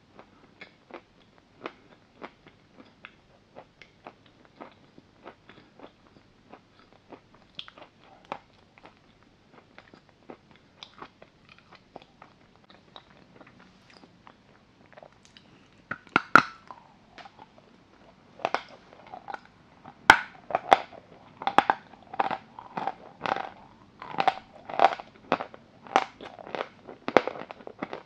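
A block of chalk being bitten and chewed close to the microphone. At first, soft crunches come about twice a second; from a little past halfway the crunches grow much louder and denser, with a few sharp cracking bites.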